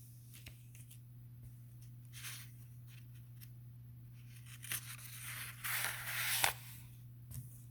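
Paper rustling as a book page is handled and turned: a brief swish about two seconds in, then a longer, louder rustle near the end, over a faint steady electrical hum.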